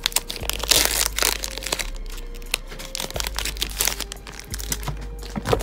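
Foil Pokémon booster pack crinkling in the hands as it is worked open: a dense run of crackles for about the first two seconds, then sparser crackles.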